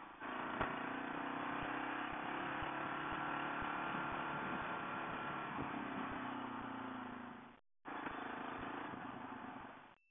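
Motorcycle engine running while the bike is ridden on a dirt road, under a steady hiss of wind and tyre noise with occasional short knocks. The engine note drops in the second half as the bike slows, and the sound cuts out briefly about three-quarters through.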